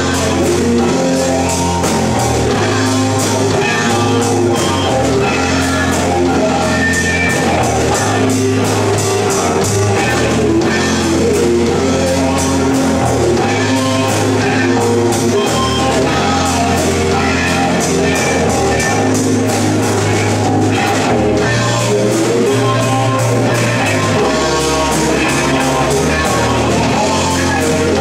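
Live rock band playing: electric guitars and a drum kit, with a woman singing into the microphone.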